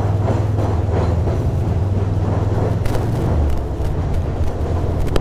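2006 Ducati Monster 620's air-cooled L-twin engine running at low speed in slow traffic, a steady low engine note that dips briefly about three and a half seconds in, with road noise around it.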